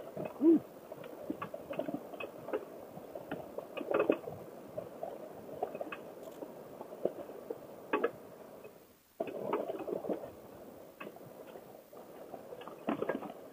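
A Honda NC700XD motorcycle riding over a rough dirt and gravel track: uneven crunching with many irregular knocks and clicks from the tyres and the bike. The sound drops almost to nothing for a moment a little before nine seconds in, then picks up again.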